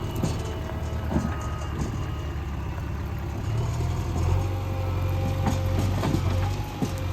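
Diesel engine of a JCB 3DX backhoe loader running under work. Its note strengthens about three and a half seconds in, with a few short knocks and clanks.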